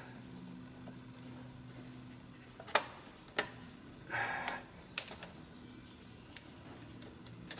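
Faint handling sounds of a length of electrical wire being twisted and tied among a motorcycle's wiring: a few sharp clicks and a short rustle about four seconds in, over a low steady hum.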